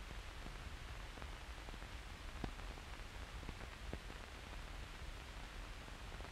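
Steady hiss and low hum with scattered faint clicks, one louder about two and a half seconds in: the surface noise of an old film soundtrack with no speech or music on it.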